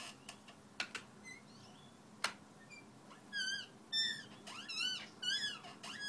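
Squeaky chair creaking as the sitter shifts and leans back: a few sharp clicks at first, then from about three seconds in a run of high squeaks, each rising then falling in pitch, roughly two a second.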